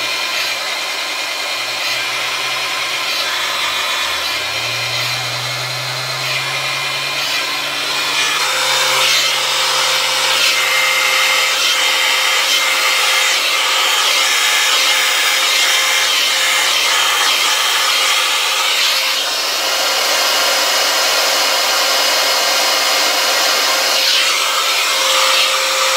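Hand-held hair dryer running steadily while drying curly hair, getting somewhat louder about eight or nine seconds in and cutting off abruptly at the end.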